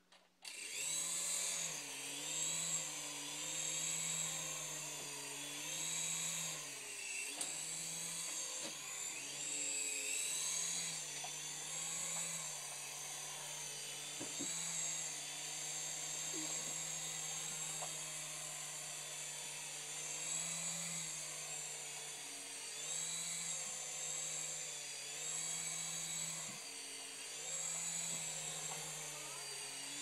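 Small remote-control toy helicopter's electric motor and rotor whining, spinning up about half a second in and flying, the pitch rising and falling again and again.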